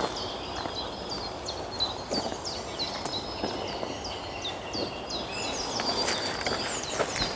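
Birds singing in quick, high, falling chirps, with the crunch of footsteps through dry twigs and leaf litter, sharper crackles coming about six seconds in.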